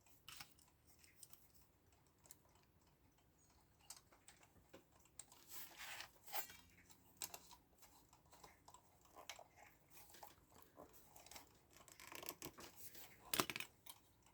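Faint, irregular clicks and light scraping of small parts being handled and fitted on a mechanical alarm clock, with a louder cluster of clicks near the end.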